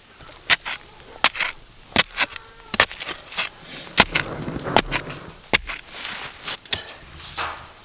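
Steel shovel scraping into sandy dirt and gravel and dumping it into a post hole around a wooden shed post. The scrapes and knocks come about one a second, with a gritty rush of sliding dirt after several of them.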